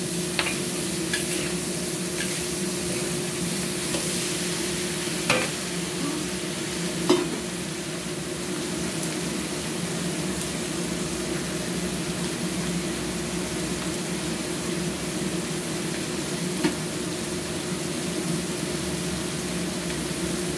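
Prawns and asparagus lettuce stem stir-frying in a wok: a steady sizzle over a low hum, with the metal spatula scraping and knocking sharply against the wok a few times, the loudest knock about seven seconds in.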